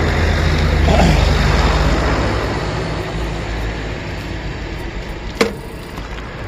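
Road traffic: a passing motor vehicle's engine hum, loudest about a second in, fading away over the next few seconds under steady road noise. A single sharp click sounds near the end.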